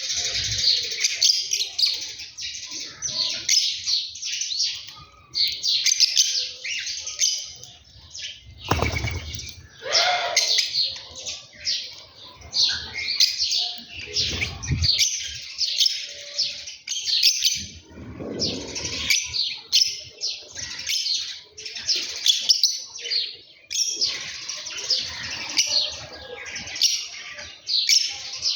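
A flock of small birds chirping and twittering, in dense bursts with short pauses. A few lower, briefer sounds come in among them several times.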